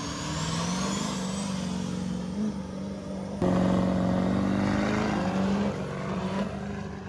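Diesel pickup trucks running at the starting line of a dirt drag strip and launching, with a high whistle rising in pitch in the first second or so. About halfway through the engine sound suddenly gets louder, then eases off near the end.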